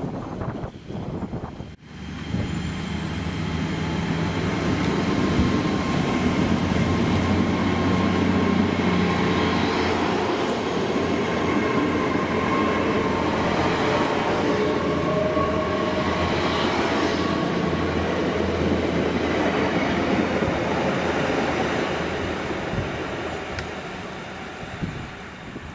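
GWR Hitachi Class 800/802 bi-mode train pulling out of the station under diesel power. The underfloor engines build up with a high whine rising in pitch as it gathers speed, and the sound grows louder over the first few seconds, then fades near the end as the train draws away.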